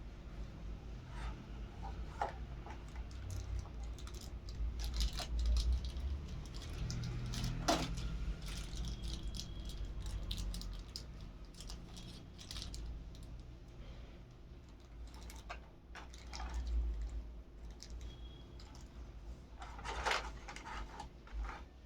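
Scattered clicks and short rustles of small objects and packaging being handled close to the microphone, over a low rumble of handling noise.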